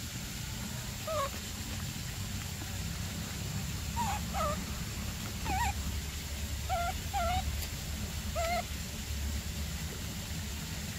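Nursing baby macaque whimpering: short, high, squeaky calls that rise and fall, about seven of them at irregular intervals, over a low steady rumble.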